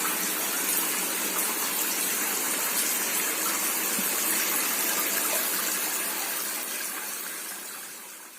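Water showering down from a small pump-fed DIY fountain and splashing into a plastic bowl: a steady rushing splash that fades out near the end.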